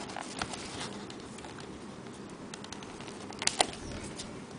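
Small cardboard trading-card deck box being handled, giving light taps and scrapes, with two sharp clicks about three and a half seconds in.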